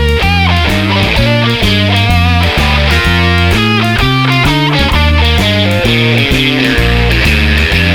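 Background rock music with distorted electric guitar, bass and drums at a fast, steady beat.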